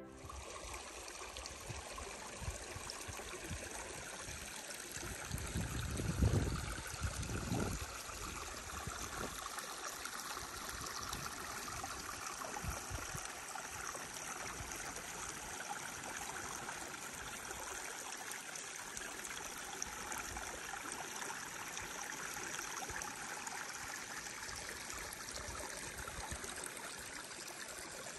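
Small shallow mountain stream trickling over rocks, a steady even hiss. A few brief low rumbles come between about five and eight seconds in.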